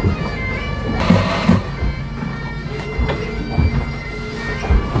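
Bagpipes playing steady drones under the melody. Low thumps recur every second or so, and a brief rush of noise comes about a second in.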